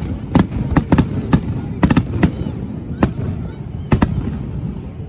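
Aerial fireworks shells bursting in quick succession, about a dozen sharp bangs with a rumbling tail. They stop a little after four seconds in.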